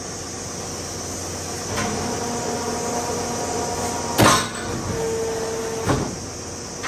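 Steel angle bar being fed along a roller conveyor into a metal-working machine: the bar rolls and scrapes with faint squealing tones, then a loud metallic clank about four seconds in and a smaller one near six seconds, over a steady machinery hum.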